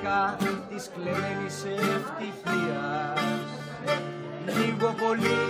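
A man singing over a strummed plucked string instrument.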